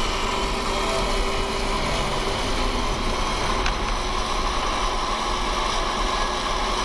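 Steady road and engine noise of a car driving along at even speed, heard from inside the cabin.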